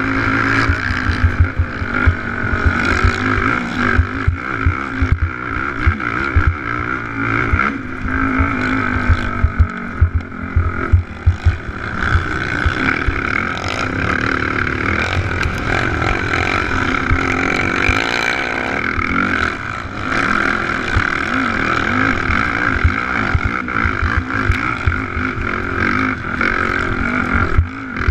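Racing ATV's engine running hard, heard through a camera mounted on the quad, with wind buffeting and irregular low knocks from the rough dirt track. The engine eases off briefly about two-thirds of the way through, then picks up again.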